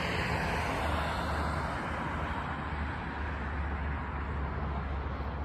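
Road traffic noise: a rushing sound from a passing vehicle that slowly fades, over a steady low rumble.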